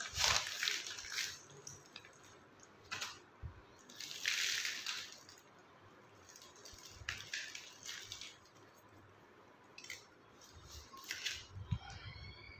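Scattered rustling and scraping from handling a potted lantana: the pot is worked off the root ball and the dense ball of roots and soil is turned in the hands. The loudest rustle comes about four seconds in, with shorter ones spread through.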